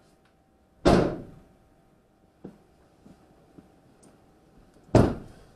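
Two heavy door slams on a Sprinter cargo van, about four seconds apart, each echoing briefly in the empty metal cargo area, with a few light knocks between. The first is the rear cargo doors being shut after loading; the second is a door slam once the driver is back in his seat.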